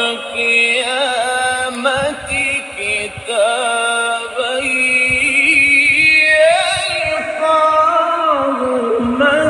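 Music: a voice singing a slow, ornamented melody, with long held notes that waver in pitch.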